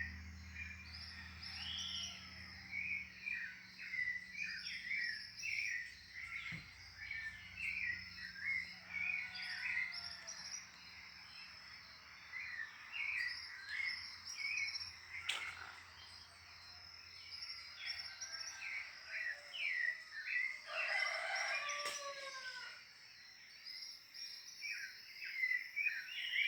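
Dawn chorus of many small birds chirping and singing in quick, overlapping short calls, with one longer, lower call about two-thirds of the way through.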